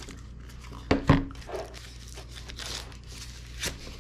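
Cardboard and plastic packaging being handled: a cardboard insert lifted out of a small box and plastic wrapping crinkling, with two sharp knocks or scrapes about a second in and another near the end.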